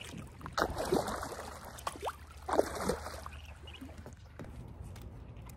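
Kayak paddling: the double-bladed paddle dips and swishes through the water in two louder strokes, about a second and two and a half seconds in, followed by a few light knocks.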